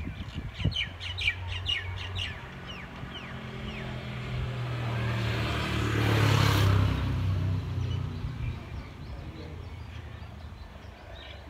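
Small birds chirping in quick, down-sliding calls for the first few seconds. Then a vehicle passes, its noise swelling to a peak about six seconds in and fading away, and the chirping returns near the end.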